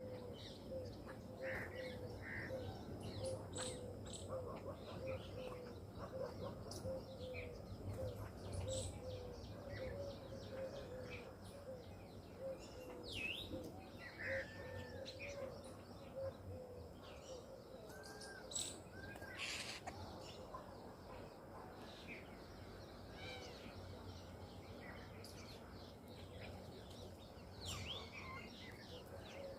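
Several birds calling and chirping over a steady low background noise. Through the first half a quick run of low, short repeated notes carries on under scattered higher chirps and whistles.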